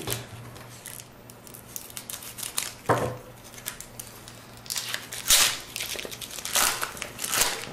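Topps baseball card pack wrapper being torn open and crinkled by hand: a sharp crackle about three seconds in, then a run of crinkling and tearing in the second half, loudest a little past five seconds in.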